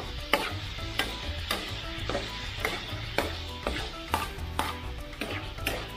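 Spatula stirring and scraping pork spare ribs, garlic, onion and tomato sautéing in oil in a nonstick pan, with the oil sizzling. Short scrapes come about twice a second, over background music.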